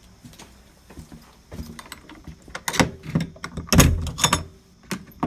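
A run of knocks and clunks from things being handled, with a heavier low thump a little before four seconds in.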